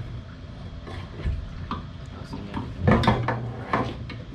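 Light metallic clinks and knocks of a fuel pump assembly being worked loose and lifted out of a dropped fuel tank, with a cluster of sharper knocks about three seconds in.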